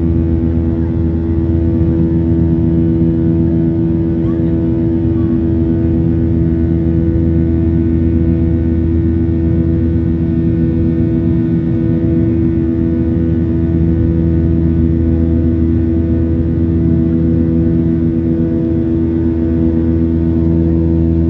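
Airliner cabin noise: the aircraft's engines give a loud, steady drone with several constant low hum tones over an even rushing hiss, unchanged throughout.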